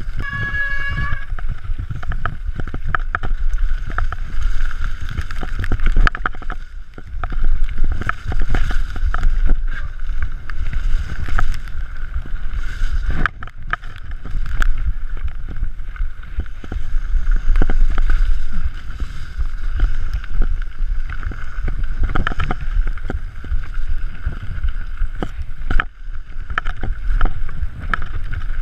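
Mountain bike descending a rough, muddy forest trail, heard from a bike- or helmet-mounted action camera: wind buffeting the microphone, tyres on dirt, and frequent rattles and knocks from the bike over bumps, over a steady high buzz. A brief squeal at the very start.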